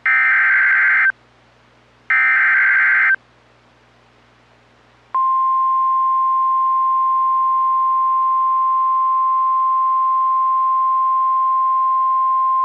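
NOAA Weather Radio alert signal: the last two of three SAME digital header bursts, each about a second of buzzy data noise with a second's gap between them. After a pause of about two seconds, the steady single-pitch 1050 Hz warning alarm tone starts and holds. It marks a warning-level alert, here a severe thunderstorm warning.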